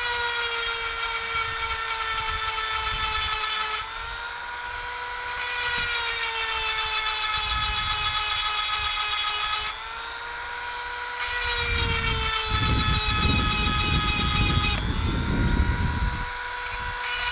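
High-speed rotary chainsaw sharpener (a 130-watt Dremel-style grinder) whining steadily as its grinding stone sharpens the teeth of a saw chain. Its pitch dips briefly three times, and a low rumble joins it for a few seconds near the end.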